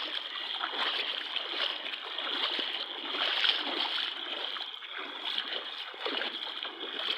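Rainwater runoff rushing and splashing along a flooded street, a steady, uneven wash of water.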